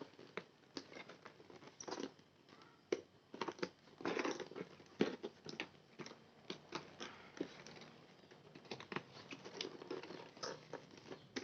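Shipping package being unwrapped by hand: irregular crinkling and rustling of the wrapping, with small clicks and knocks.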